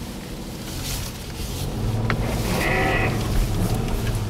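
Inside the cabin of a Nissan Xterra driving through snow: a steady low engine and road hum that grows louder about a second and a half in, a sharp click about two seconds in, and a short bleat-like cry lasting about half a second, around two and a half seconds in.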